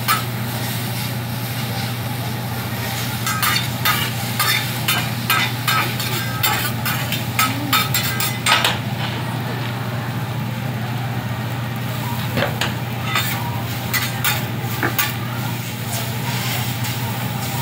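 Metal spatulas clicking and scraping on a hibachi flat-top griddle as food sizzles, in quick clusters of sharp clicks, over a steady low hum.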